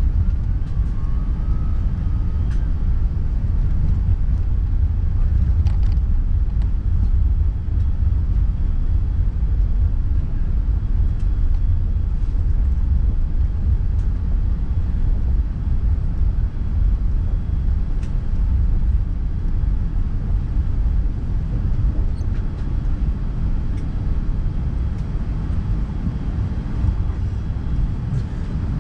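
Cabin noise of an Airbus A380 taxiing: a steady low rumble from the Rolls-Royce Trent 900 engines at taxi power and the rolling airframe, with a few faint clicks.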